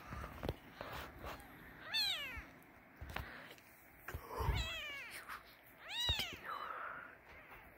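Newborn Siamese kittens mewing: three high, thin cries about two seconds apart, each falling in pitch, with a few soft knocks of the kittens shifting on the bedding between them.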